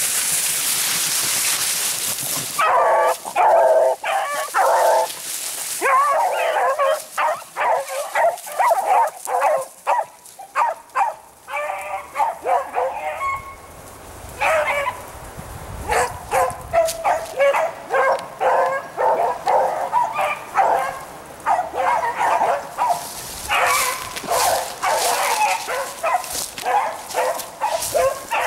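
A pack of beagles baying in chorus, many overlapping cries as they run a rabbit's scent. The baying starts about two and a half seconds in, after a short hiss, and eases briefly midway before building again.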